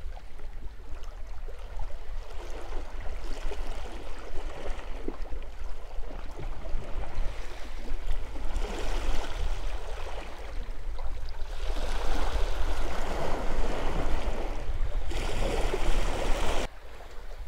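Sea water washing and sloshing against rocks just below, coming in swells that grow louder through the second half, over a steady low wind rumble on the microphone.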